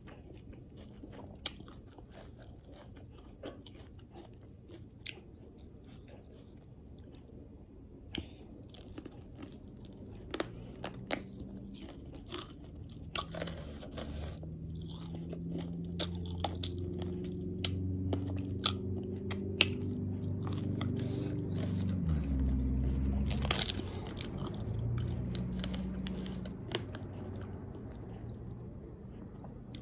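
Close-up eating sounds: crunchy bites and chewing of sauce-coated Korean fried chicken, with sharp crackling clicks throughout. A low droning hum swells through the middle, peaks, and fades away again.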